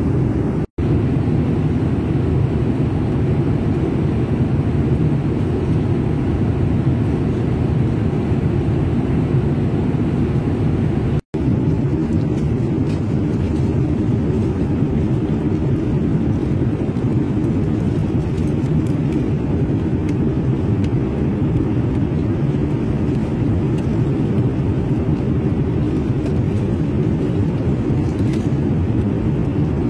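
Airliner cabin noise in flight: a steady low drone of engines and airflow. It cuts out completely for an instant twice, about a second in and about eleven seconds in.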